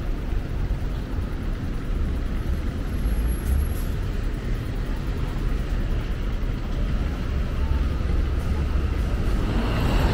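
Street ambience dominated by a steady low rumble of road traffic along a busy city street.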